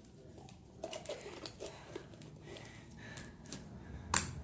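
Faint clicks and taps of a small plastic slime container being handled and opened, with one sharp plastic click near the end.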